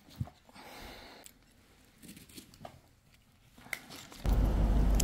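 A fabric duffel gym bag being picked up and handled: quiet rustling of straps and fabric with a light thump just after the start. Near the end the sound cuts abruptly to a loud, steady low rumble.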